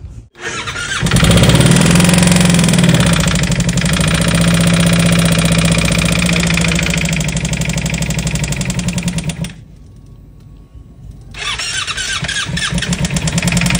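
Electric starter cranking a Kawasaki Ninja 300's parallel-twin engine in two long tries, about eight seconds, then a short pause and another crank near the end, without the engine catching. The engine had been run without oil, has just been refilled, and the owner fears it has seized.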